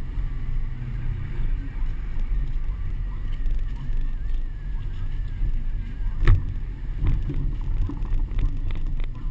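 Low, steady rumble of a truck driving slowly, with wind and road noise picked up by a GoPro strapped to the outside of the truck. A sharp knock about six seconds in, then a few lighter clicks.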